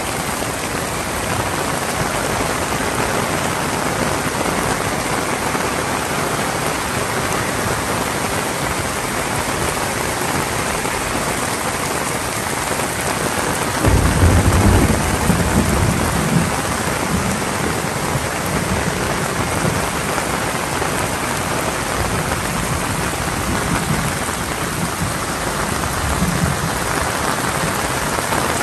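Heavy rain falling steadily. About halfway through, a rumble of thunder comes in suddenly and rolls for a few seconds, then fades back under the rain.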